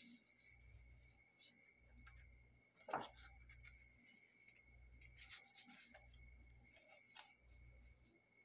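Faint rustling and sliding of a loose sheet of patterned craft paper being handled over a journal page, with a sharp tap about three seconds in. A faint steady high whine runs underneath.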